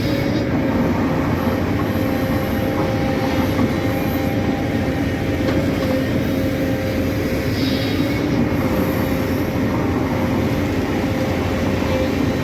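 Excavator's diesel engine running steadily under load, a constant heavy hum with a low, even drone.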